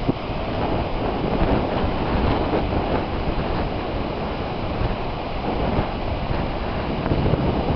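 Wind blowing across the camera microphone with the steady wash of small waves breaking in the shallows of a sandy bay beach.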